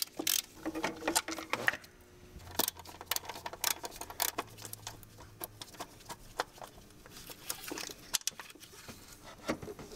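Irregular light clicks and taps of a socket wrench and metal parts being handled while the PCV box bolts are taken out.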